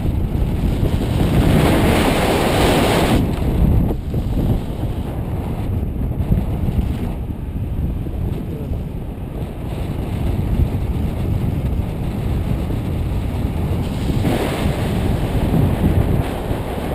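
Airflow rushing over the camera microphone in paraglider flight, an even roar of wind noise that swells louder in the first few seconds and again near the end.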